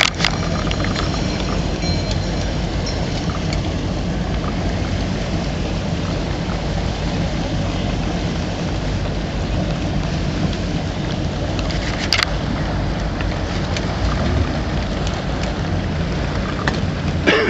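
Steady low rumble and hiss of a fishing boat running on open water. A brief sharp click about twelve seconds in.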